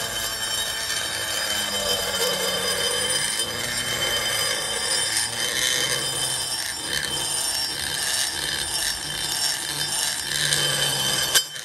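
Electric pencil die grinder running at high speed with a steady high whine as its bit grinds out a port in a motorcycle cylinder head during porting. It shuts off abruptly with a click near the end.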